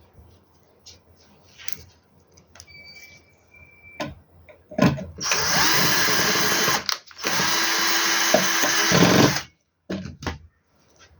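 Power drill-driver running in two steady bursts of about two seconds each, with a brief stop between them, preceded by a few light clicks and knocks; it is driving in the screws that close up the inverter's case.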